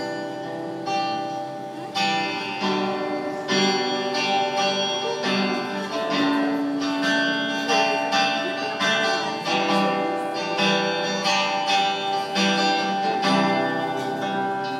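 Acoustic guitar strummed in a steady rhythm, chords ringing on through an instrumental passage of a slow song with no singing.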